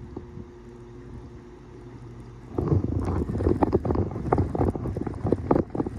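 Wind buffeting the microphone, faint at first and then breaking into loud, uneven gusts about two and a half seconds in.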